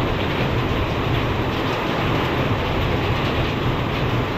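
Heavy thunderstorm rain and high wind: a loud, steady rush of noise with a deep rumble underneath.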